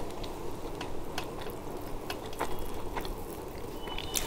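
A person chewing a mouthful of chicken biryani close to the microphone: irregular small wet clicks and smacks of the mouth over a low steady room hum.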